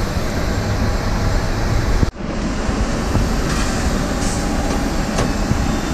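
Steady loud apron noise: low rumble and hiss with a faint high whine, as from a parked jet airliner and ground equipment, with wind buffeting the microphone. The sound cuts out abruptly for an instant about two seconds in.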